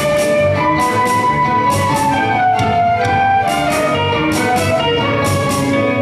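Youth orchestra of violins, classical guitars and keyboards playing a piece live, with held melody notes over a steady pulse of sharp hits.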